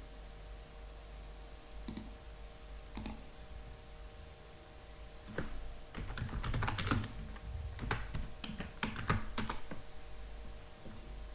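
Typing on a computer keyboard: two lone key taps, then a quick flurry of keystrokes for about four seconds in the second half.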